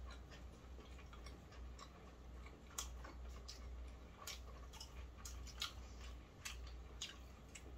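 Quiet chewing of fried chicken, with scattered, irregular mouth clicks and small crunches over a low steady hum.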